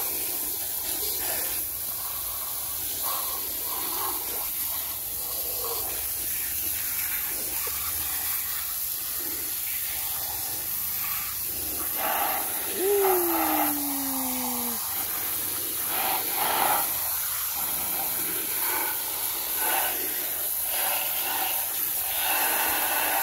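Water jetting from a garden-hose spray nozzle onto muddy toy cars and splattering off them: a steady hiss with uneven spattering surges. A short falling tone sounds once about halfway through.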